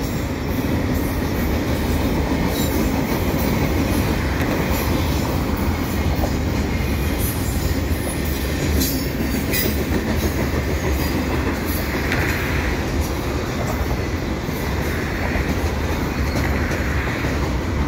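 Container cars of a double-stack freight train rolling steadily over a steel railway bridge, with a continuous rumble and scattered wheel clicks. There are a few brief faint squeals in the later part.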